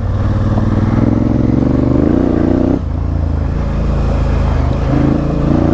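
Honda CRF1000L Africa Twin's 270-degree parallel-twin engine pulling under way, revs climbing over the first few seconds, dropping suddenly near three seconds in, then picking up again near the end.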